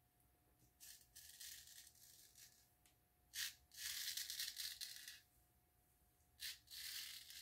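Full-hollow-ground 7/8 Frederick Herter straight razor scraping through lathered stubble on the neck in several short passes. It makes a crackly, high-pitched 'knife on toast' sound, with thin metal behind the edge.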